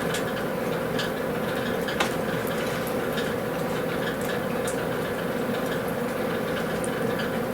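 Cooking grill running steadily, a constant hiss and low hum with a few faint crackles scattered through it.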